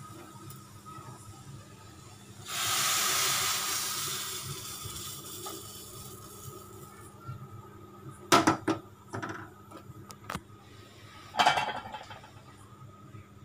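Hot spiced tempering oil poured from a metal kadai into boiling banana-stem soup. A loud sizzling hiss starts suddenly about two and a half seconds in and fades over several seconds. Later come two short bursts of metal clatter, as the pan knocks against the pot.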